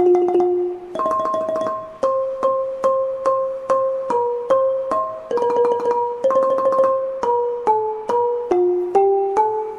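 Instrumental keyboard music: a piano-like tune of evenly repeated notes, the held pitches stepping to new notes about every second.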